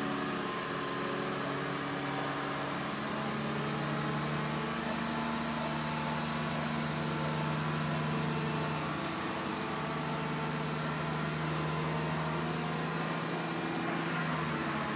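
Truck-mounted crane's engine running steadily as it powers the boom lowering a whole palm tree.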